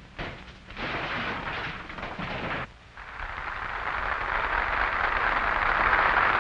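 Theatre audience applauding, the clapping building and growing louder from about three seconds in. Before it comes a shorter stretch of crowd noise that breaks off abruptly.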